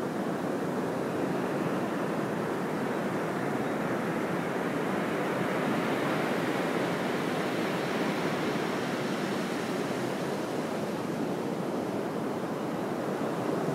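Ocean surf washing steadily, a constant rushing noise with no single wave standing out.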